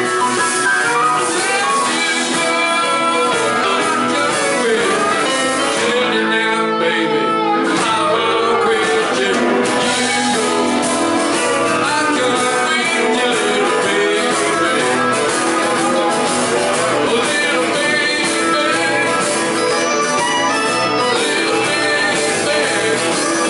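Live rock band playing with a man singing lead, backed by acoustic and electric guitars, a Hammond organ-style keyboard and drums.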